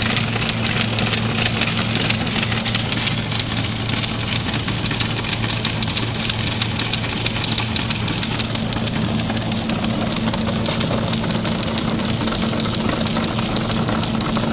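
Rotary label die-cutting and slitting machine running at its top speed, making a steady motor hum with a dense, fast ticking over it as the label web is die-cut, slit and rewound.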